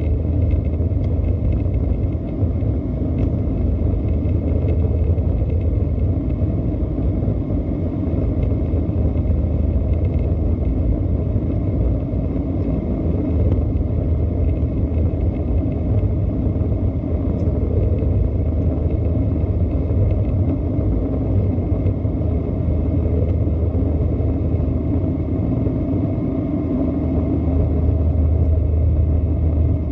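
Steady low rumble of an Airbus A320-214 and its CFM56 jet engines running, with faint steady high tones above it.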